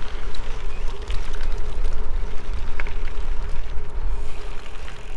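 Gravel-bike tyres rolling over a gravel road with wind on the microphone: a steady rushing noise with a deep rumble and scattered small clicks of loose stones.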